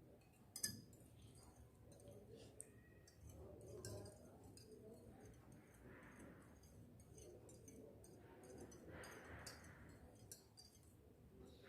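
Faint, light clicking of a utensil against a bowl as eggs are beaten by hand, with one slightly louder click about half a second in.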